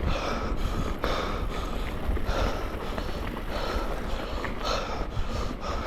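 Mountain bike riding a wet, slippery trail: tyre and bike noise under a steady low wind rumble on the action camera's microphone, with the rider's hard breathing swelling about once a second.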